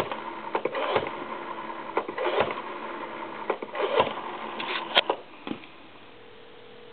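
Rotary dial of an ITT desk telephone being wound and released digit after digit, each return of the dial a short whirring run of ticks. The dialing stops about five and a half seconds in.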